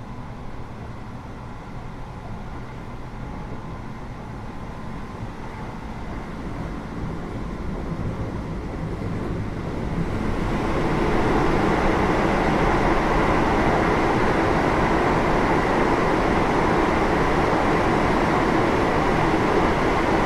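Keio 8000 series electric train running, heard from inside the car above its GTO-VVVF main controller. The running noise grows louder and about ten seconds in becomes a loud, steady roar.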